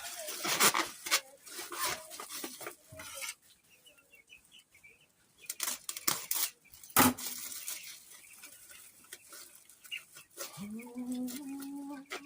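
Clattering and rustling of handling noises, pans and bags knocked and shifted in irregular bursts, with a pause in the middle. Near the end a voice hums a held note.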